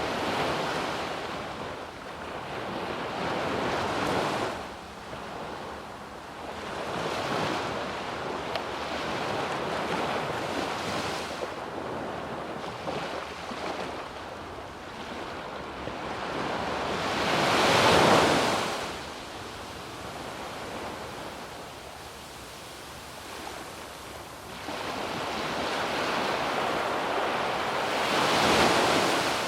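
Sea waves breaking and washing up a sandy beach, in slow surges that swell and fade every few seconds. The loudest break comes about eighteen seconds in, and another large one builds near the end.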